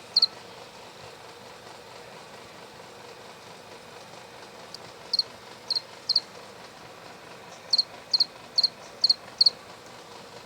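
A cricket stridulating: short, high, squeaky chirps that sound like a squeaky bearing. There is one chirp near the start, three a few seconds later, then a run of five at about two a second near the end. The speaker takes it for probably a field cricket.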